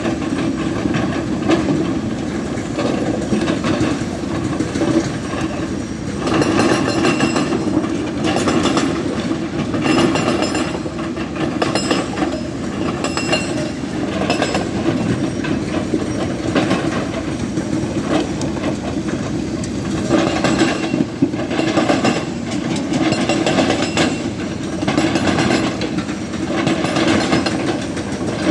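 Hydraulic rock breaker on a Tata Hitachi Zaxis 220 LC excavator hammering rock: a rapid, continuous chatter of blows over the machine's running engine, growing louder in several stretches.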